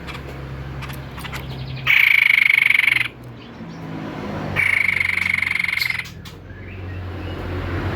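White-chested babbler calling: two long, rapidly pulsed trills at a steady pitch, each lasting one to one and a half seconds, with a gap of about a second and a half between them, over a low steady hum.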